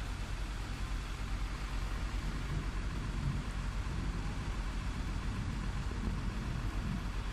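Heavy rain pouring steadily, with a low rumble underneath that swells between about two and seven seconds in.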